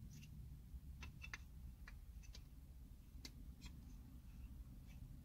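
A dozen or so faint, irregular clicks and taps of small plastic parts as a DJI Pocket 2 pocket camera is handled and pushed into its case, over a low steady rumble.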